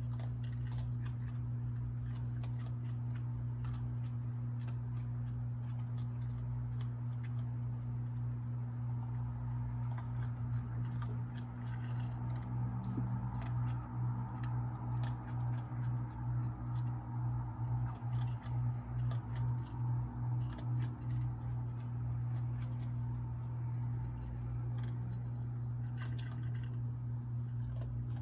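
Raccoon chewing dry cat food, a quiet uneven crunching with small clicks about halfway through, over a steady low hum and crickets trilling.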